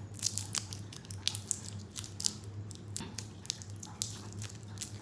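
Small, irregular clicks and crackles of plastic being picked at and handled: the packaging of a new matte lip cream being opened, over a low steady hum.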